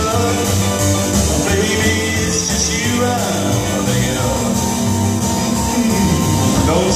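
Live rock and roll band playing an instrumental passage with electric guitar, upright bass, drums and piano, at a steady loud level.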